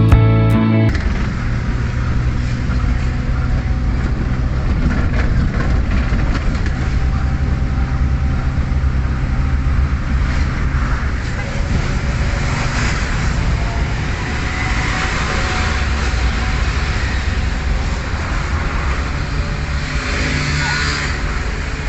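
A vehicle engine running steadily, a low hum with a slight rise in pitch near the end. A guitar music track cuts off about a second in.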